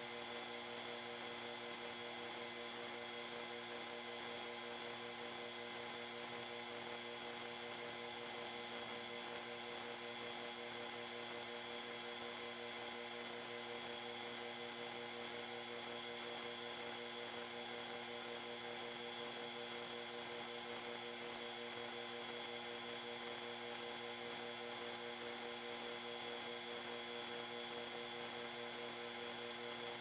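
Snap-on PS134 Pro air-conditioning service station running with a steady hum of several held tones, its machinery working through a refrigerant service cycle.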